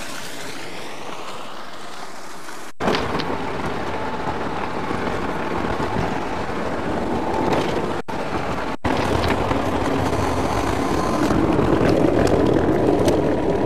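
Irrigation water gushing out of a concrete channel outlet for the first few seconds. Then, after a cut, the steady running and road noise of a vehicle, which grows a little louder toward the end.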